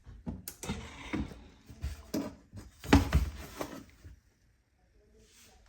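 Rattling and knocking from things being handled and moved about, as someone rummages for laundry detergent, with one loud knock about three seconds in; the handling stops about four seconds in, leaving only faint sounds.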